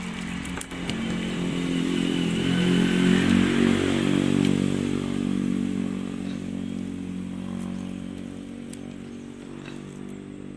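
A small engine passing close by: a steady engine note that grows louder over the first few seconds, is loudest about three to four seconds in, then slowly fades away.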